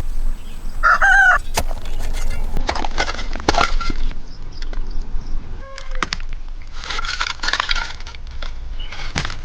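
Domestic chickens calling, with a short wavering call about a second in. Scattered knocks and clatter are heard throughout.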